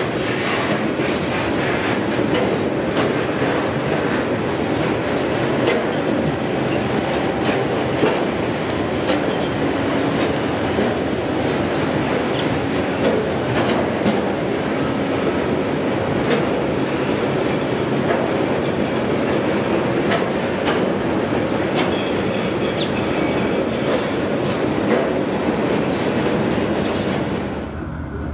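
Intermodal freight train's container wagons rolling steadily past, wheels clacking over the rail joints. The sound drops suddenly near the end.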